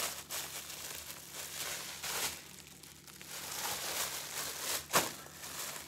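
Clear plastic bag crinkling and rustling as it is handled and unwrapped by hand, with irregular crackles and one sharper crackle about five seconds in.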